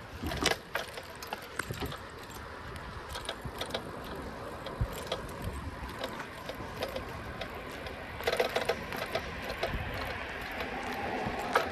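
Bicycle rattling and clicking as it rides along a paved road, over a steady rush of tyre and wind noise, with a denser run of clicks about eight seconds in.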